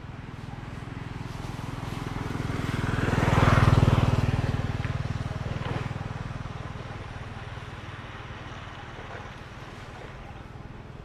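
A motor vehicle driving past, growing louder to a peak a little under four seconds in and then slowly fading away.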